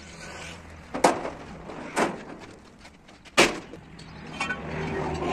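Three heavy knocks, each with a short ringing tail, the first and third the loudest. A steady hum builds near the end.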